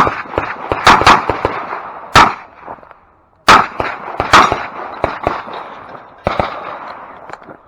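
Revolver gunfire during a timed stage: sharp shots come in quick pairs and singles, each with a short echo. Brief gaps fall between groups, the longest about two and a half seconds in.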